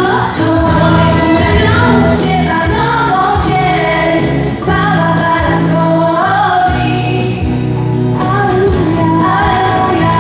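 Music: voices singing a song together over steady instrumental accompaniment.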